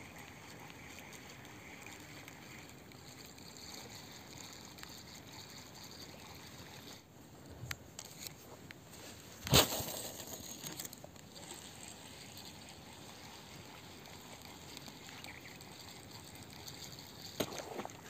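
Faint steady riverside noise with light water sounds. Partway through come a few sharp clicks and one loud knock as a spinning rod and reel are handled for a cast.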